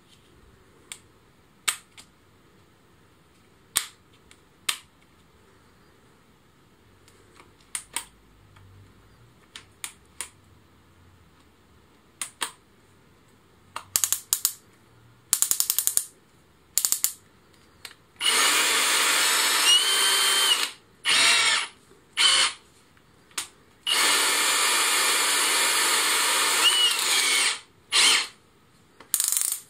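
Aldi Workzone Titanium+ cordless drill being handled with scattered sharp clicks, then its motor whirring in short trigger bursts and two longer runs of two to three seconds each.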